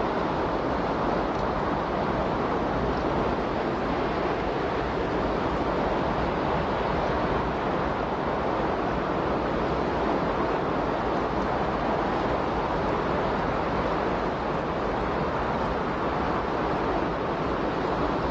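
A steady, even rushing noise like surf, with no breaks or distinct events: the masking sound bed of a subliminal audio track.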